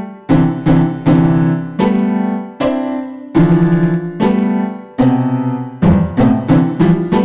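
Keyboard music in a piano tone: a run of struck chords, each fading away before the next, in an uneven rhythm of roughly one to three chords a second.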